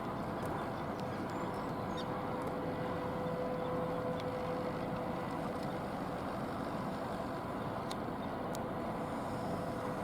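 Steady low rumble with a constant hum from a large cruise ship's engines and ventilation machinery as the ship passes close by, with a few faint ticks.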